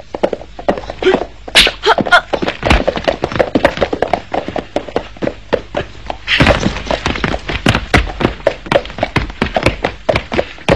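A rapid, irregular run of sharp knocks and clacks, thickening into a denser clatter about six seconds in.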